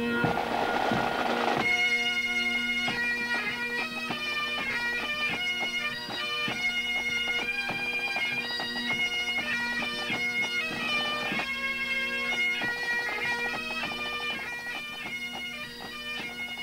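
A pipe band of Great Highland bagpipes playing. The steady drones strike up first, and the chanters come in with the tune about two seconds in.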